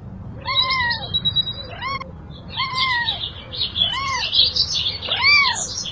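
A kitten meowing repeatedly, about six short rising-and-falling meows roughly a second apart, with birds chirping high in the background.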